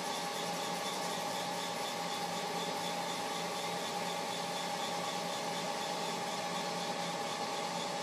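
Metal lathe running steadily with a constant hum while a parting tool cuts into a spinning brass workpiece, parting off a knurled knob.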